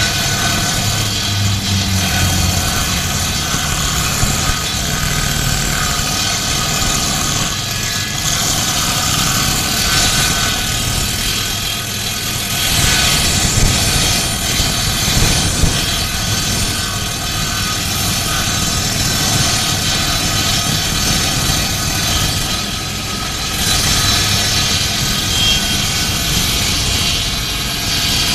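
Electric woodworking machine running steadily while cutting into wood, a continuous loud whirring cutting noise that swells and eases slightly as the stock is worked.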